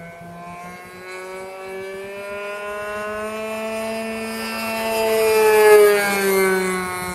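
Radio-controlled Ultimate biplane's motor and propeller droning in flight, rising in pitch and getting louder as it comes in close overhead, loudest near the end, then the pitch drops as it passes.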